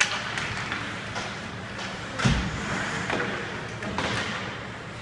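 Ice hockey rink ambience during play: a steady hiss of skates and general arena noise with scattered clacks, and one heavy thud about two seconds in.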